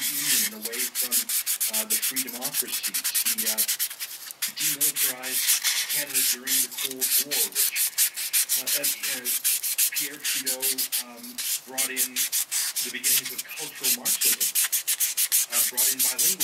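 A 600-grit sanding sponge is rubbed over a hard plastic kit part in quick back-and-forth strokes, making a continuous dense scratchy rasp. The clear part is being sanded rough so that it will diffuse light.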